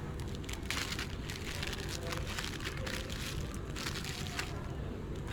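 Plastic packaging rustling and crinkling as it is handled, a steady crackly rustle.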